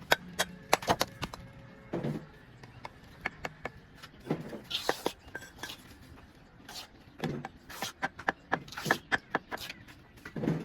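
Irregular sharp taps and knocks, several a second in clusters, with a few brief low vocal sounds between them.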